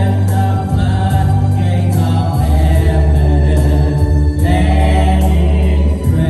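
Worship music: a band with held bass notes and a steady cymbal beat, under group singing.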